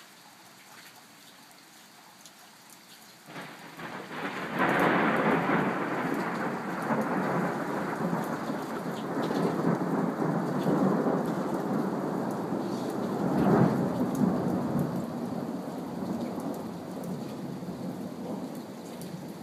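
A long roll of thunder. The rumble builds about three seconds in and breaks loudly a second later. It swells again with a sharper clap about nine seconds after that, then slowly dies away.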